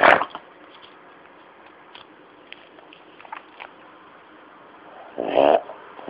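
Sleeping dog snoring: a sharp snort at the start, a quieter stretch with a few faint clicks, then a loud snore about five seconds in.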